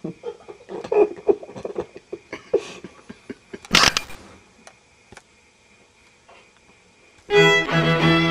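A long bowed-string music note comes in suddenly near the end and holds steadily. Before it come scattered short sounds and one loud, brief hissing burst about four seconds in.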